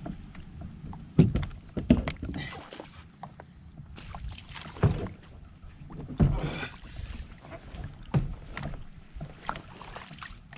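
Irregular knocks and bumps of a kayak's hull and the fishing gear aboard being handled, a handful of sharper knocks standing out over a low rumble.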